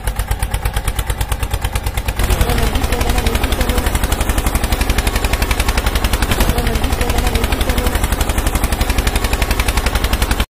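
Tractor engine chugging in rapid, even beats of about ten a second, getting louder about two seconds in and cutting off suddenly near the end.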